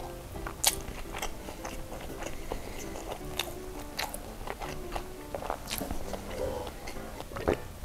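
Close-miked wet chewing of a mouthful of cheese-filled sausage and rice, with sharp mouth clicks now and then.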